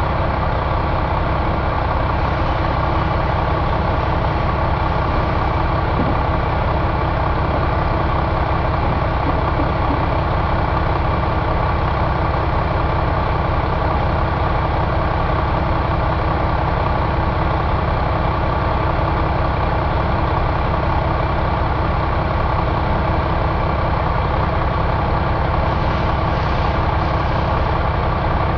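Volvo D13 inline-six turbo diesel engine running steadily at idle.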